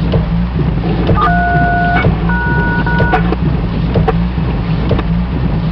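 Steady drone of an aircraft cabin heard over an intercom or radio feed, with scattered clicks. Two short electronic two-note beeps sound, one about a second in and the next just after it.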